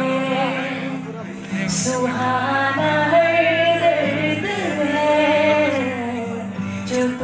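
A woman singing a slow melody into a microphone, holding long notes with vibrato, over an acoustic guitar accompaniment, heard through the hall's PA.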